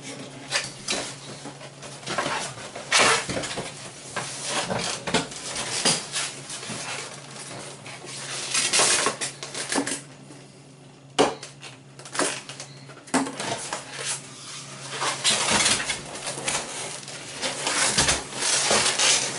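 Cardboard box being opened by hand: the flaps are pulled open and the box is handled and tipped over, giving irregular rustling, scraping and knocking, with a sharp click about eleven seconds in.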